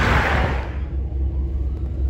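A car passing close, a loud rush of tyre and air noise that cuts off about two-thirds of a second in. Then steady low traffic rumble, with a faint police siren beginning to rise in pitch.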